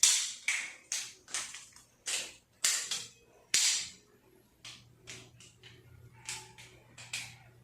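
A series of sharp clacks, about two a second, louder at first, then fainter and more spread out after about four seconds.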